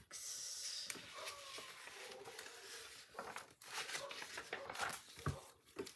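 Old paper crochet pattern booklets rustling and crinkling as pages are turned and handled, with a few short soft knocks in the second half.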